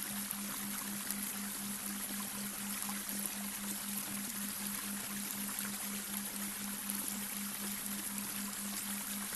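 Babbling brook water running steadily, under a low hum that pulses about four times a second: the delta-wave brainwave tone mixed into the soundscape.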